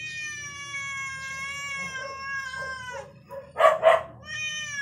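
Calico cat giving an angry, drawn-out meow that lasts about three seconds and sinks slowly in pitch. Two short, loud, sharp sounds follow, and another long meow begins near the end.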